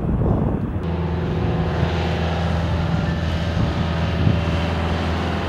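Engines running with a steady low drone under a wide rushing hiss; the drone sets in about a second in.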